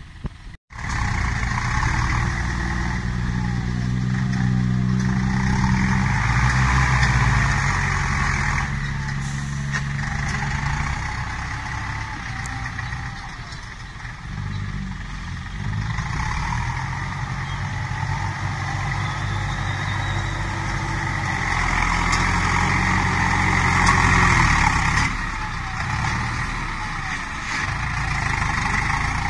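Ford New Holland TS90 tractor's diesel engine running under load as it pushes soil with its front blade. The engine note swells and eases as the load changes, after a short break in the sound just after the start.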